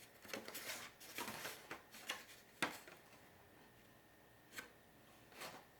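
Faint rustling and clicking of a deflated vinyl pool inflatable being handled and fiddled with, with a sharper click about halfway through and another later on.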